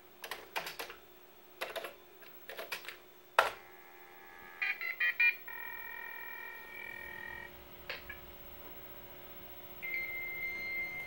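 Keys clicking on a Commodore 64 keyboard as a modem dial command is typed, then a Mini Modem C24 dial-up modem dials with a quick string of touch-tone beeps, followed by about two seconds of ringing tone on the line. Near the end the answering modem on the IBM PS/1 picks up and a steady high-pitched answer tone begins.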